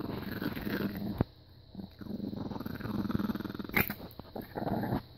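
Chihuahua puppy growling in bouts with short pauses as a hand touches her while she eats a treat: food guarding. A sharp click about four seconds in.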